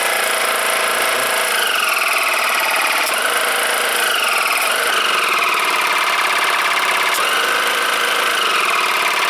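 12 V car tyre compressor running steadily on its test after reassembly, its small electric motor driving the piston: the repaired compressor is pumping again. A whine in the running sound slides down in pitch over and over.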